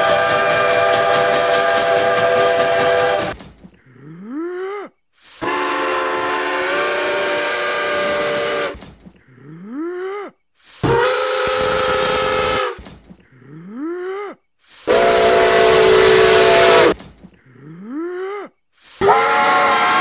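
Five steam locomotive whistle blasts, among them Canadian Pacific 2860's air whistle, Pere Marquette 1225's and New Zealand Railways Ka 942's, each a loud multi-note chord held for two to three and a half seconds and then cut off. Before each blast, a short rising shout from a cartoon man's voice.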